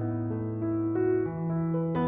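Background music: a slow keyboard melody over held low notes, the bass note changing about a second in.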